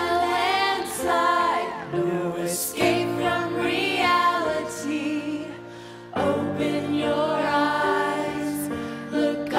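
Music: several voices singing in close harmony, with chords held and then moving. The singing thins out about five seconds in and comes back in full about a second later.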